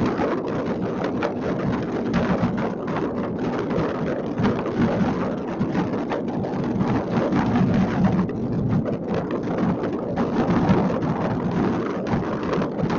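Many fireworks going off at once across a city at a distance, their bangs and crackles overlapping into one continuous din with no breaks.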